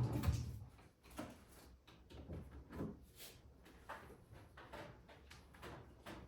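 Irregular soft knocks, clicks and rustles of household things being handled and set down, about one or two a second, with a short low hum in the first half-second. No vacuum cleaner is running.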